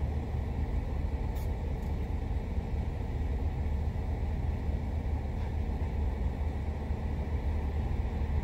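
Car engine idling steadily, heard from inside the cabin as an even low rumble, with two faint light clicks about a second and a half in.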